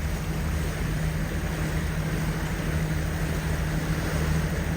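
Ranger Tug R27 motor cruiser's engine running steadily under way, a constant low drone with a strong hum, over a haze of water and wind noise.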